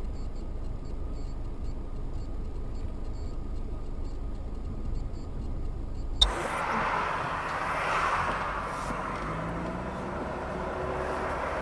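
Vehicle dashcam audio: a low, steady road and engine rumble, then a sharp click about six seconds in, after which the sound switches abruptly to louder, hissier traffic and road noise.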